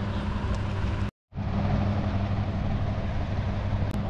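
Steady machine hum with a hiss, cut off completely for a moment about a second in.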